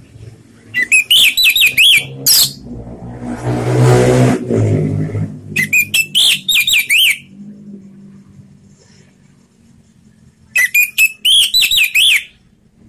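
Caged orange-headed thrush singing its loud, open 'ngeplong' song in three bursts of rapid, sharply rising and falling whistled notes, each burst lasting about one and a half seconds. Between the first two bursts a broader, lower rumbling noise swells and fades.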